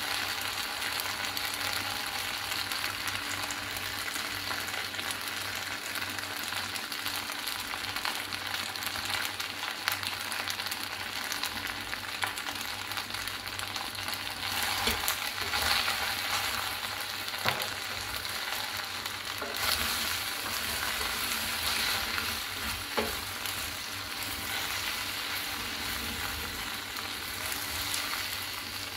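Shell pasta sizzling in a steel pot over the heat while a wooden spoon stirs it, with a few sharp knocks of the spoon against the pot.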